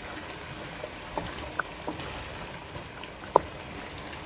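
Chicken and spices frying on high heat in a cooking pot: a steady low sizzle with a few short sharp pops or clicks, the loudest about three seconds in.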